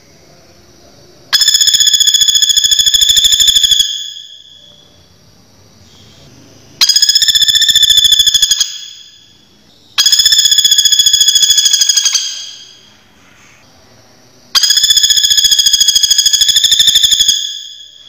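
Common flameback woodpecker giving its fast rattling trill call four times, each rattle two to three seconds long and starting abruptly.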